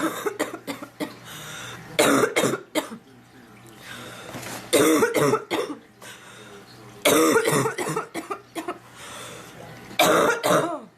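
A sick woman coughing in about five separate bouts, two to three seconds apart, with a sore throat.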